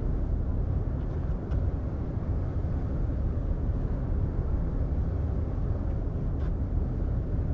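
Steady low rumble aboard the Jumbo Ferry Ritsurin 2 under way, the ship's engines and the wind over the deck blending into one even noise.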